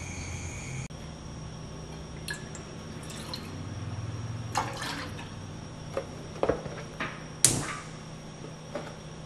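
Milk poured from a carton into an enamel saucepan, followed by several light knocks and clinks of the carton and pan, the loudest about seven and a half seconds in.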